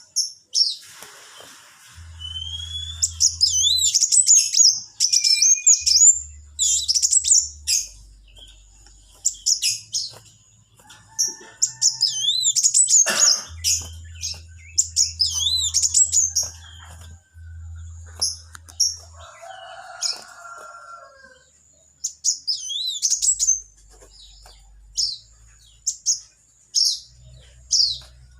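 A small songbird, the one known in Indonesia as 'burung kaca' or 'kowul', singing: repeated phrases of high, fast chirps and quick slurred whistles, with short pauses between them. A lower call comes in a couple of times near the middle.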